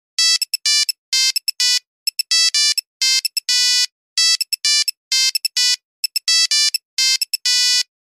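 Nokia mobile phone ringtone: a synthesised melody of short beeping notes, its phrase played twice, each ending on a longer held note.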